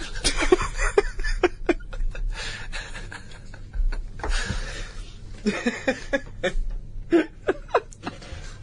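Several men laughing in fits of chuckles and breathy snickers, dying down and then swelling again about four seconds in.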